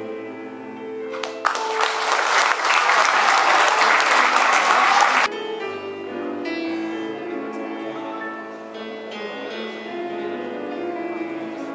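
Backing music playing, with an audience applauding loudly for about four seconds early on; the applause cuts off abruptly, and the music carries on.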